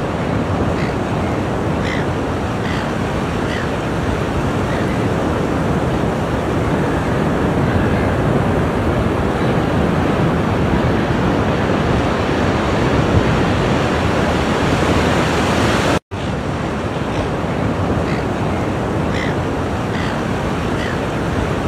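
Ocean surf: a steady wash of waves breaking on a shore, cut by a momentary dropout about sixteen seconds in.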